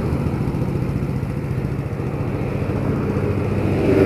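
A vehicle engine idling with a steady low hum, while cars pass on the road.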